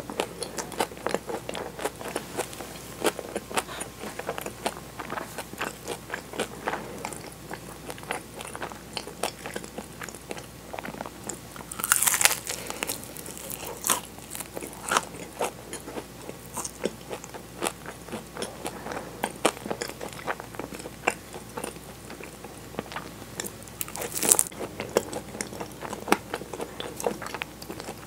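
Close-miked eating of egg tarts: crunchy chewing of flaky puff pastry, with a louder crisp bite about twelve seconds in and another about twenty-four seconds in.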